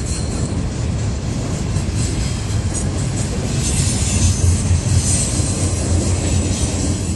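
Double-stack intermodal freight cars rolling past at track side: a steady, loud rumble of steel wheels on rail with a high hiss, swelling a little about four seconds in.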